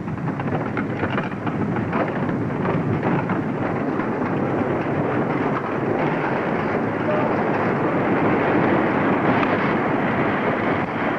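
Wooden roller coaster car running along its track: a steady, dense rumble that keeps up without a break.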